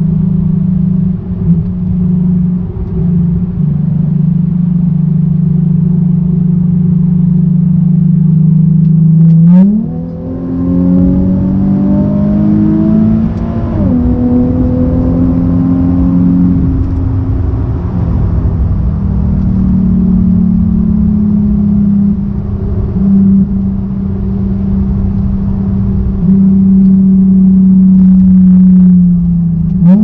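Nissan 370Z's 3.7-litre V6 heard from inside the cabin, holding steady revs, then rising sharply about nine seconds in and climbing under acceleration for a few seconds before the revs drop back sharply. It then cruises at fairly steady revs, with a short rise in revs at the very end.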